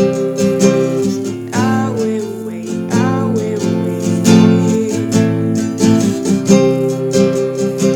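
Acoustic guitar strummed in a steady rhythm, ringing chords.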